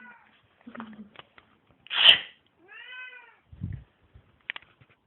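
Domestic cat meowing once in reply to a person's sneeze: a loud, sharp sneeze about two seconds in, then a single meow that rises and falls, under a second long. A low thump follows near the end.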